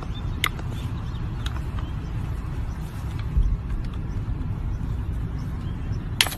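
Bolt cutters clicking as they close on a rubber swing seat and its chain, with a sharp snap as a cut goes through near the end, over a steady low rumble.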